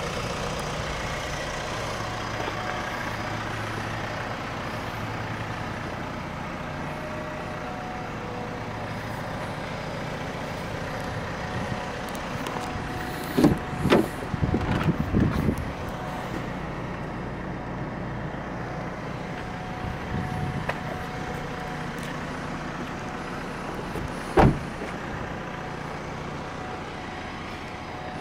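Vauxhall Astra 1.6 CDTi four-cylinder turbodiesel idling steadily. A car door is opened and handled with a few clunks about halfway through, and a sharp single thump comes later, like a door shutting.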